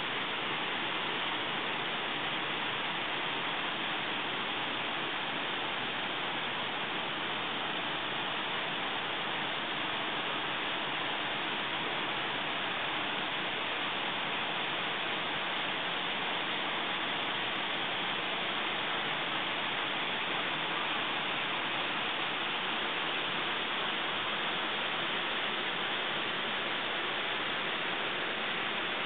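Waterfall cascading down a rocky gorge wall: a steady, even rush of falling water.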